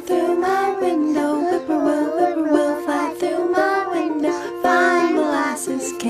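Music: a children's folk song, voices singing a melody over a plucked-string accompaniment.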